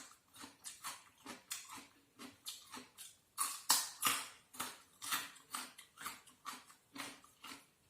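Close-up eating sounds: repeated chewing and mouth smacks, about two to three a second.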